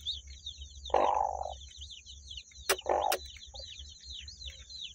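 Newly hatched chick peeping in a rapid run of short, falling cheeps. Two short rough sounds break in about one and three seconds in, with two sharp clicks between them.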